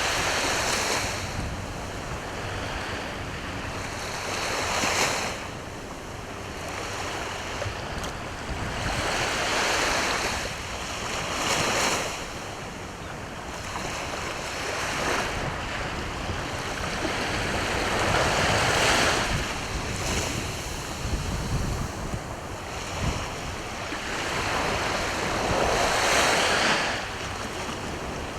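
Sea waves breaking on the shore, the wash swelling and easing every few seconds, with wind rumbling on the microphone.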